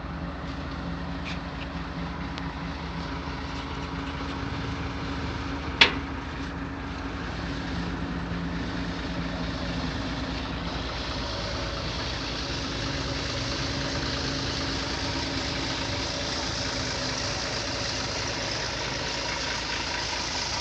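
Diesel engine idling steadily, with a single sharp knock about six seconds in and a slight rise in hiss about halfway.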